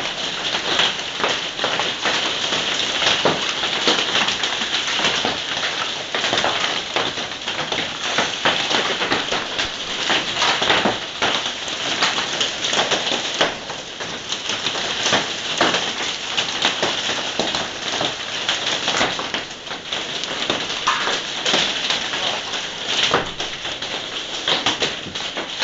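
Heavy hailstorm: hailstones and rain pelting down hard in a dense, continuous patter of many sharp impacts.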